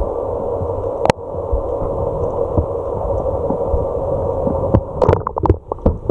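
Muffled underwater noise picked up by an action camera in its waterproof housing: a steady dull hiss, with a sharp click about a second in and a run of knocks and clicks near the end.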